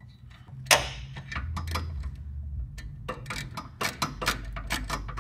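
Hand ratchet wrench clicking in a quick, regular run as a nut is run down, starting about three seconds in, after a single sharp click near the start.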